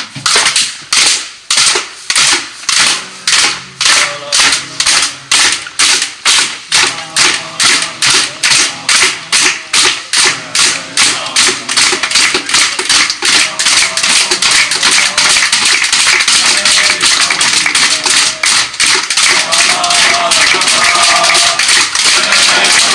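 A group of footballers beating their hands in unison, clapping and slapping, starting slow at about one beat a second and speeding up steadily into a fast continuous roll. Men's voices shout and chant over it toward the end.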